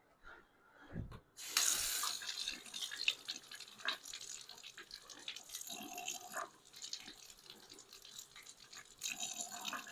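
Sink faucet running, with water splashing through a shower head's filter screen held under it to backwash the dirt out. The water comes on about a second and a half in, after a small knock.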